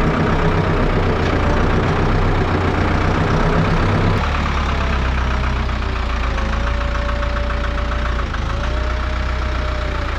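Ford 5000 tractor engine running as the tractor is driven, heard close up from the seat at first, then from farther off after about four seconds as it pulls into the shop.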